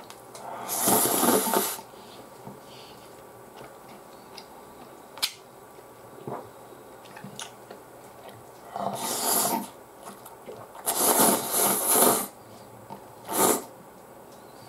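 A person slurping instant ramen noodles from a cup: four loud slurps, the first and third about a second long and the last one short, with small clicks between them.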